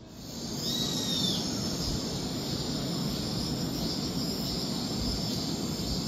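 Outdoor summer ambience: a steady high insect buzz over a low, even rushing noise, with one short bird call about a second in.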